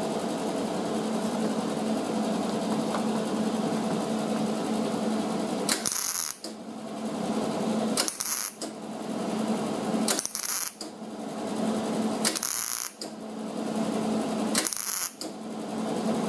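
MIG welder stitch-welding a thin sheet-metal patch panel seam in short hissing bursts, each about half a second long and coming about every two seconds from around six seconds in. The welder is on a low heat setting, and the short spots keep heat down so the panel does not warp. A steady hum runs underneath.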